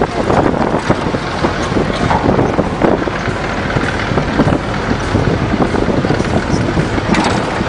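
A moving vehicle's engine and road noise, heard from inside the vehicle, with wind rushing over the microphone.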